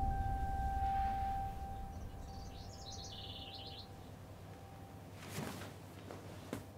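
A held low musical tone and rumble fade away over the first few seconds. In the middle, a bird chirps a quick run of short high notes. A soft rustle follows a little after five seconds, and a brief soft knock comes near the end.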